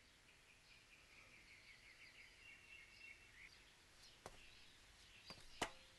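Near silence: faint ambience with small birds chirping in quick twittering runs through the first half, then a few faint ticks.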